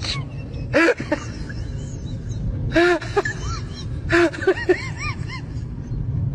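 Goats bleating in short calls, several of them one after another, over the steady low rumble of a moving train carriage.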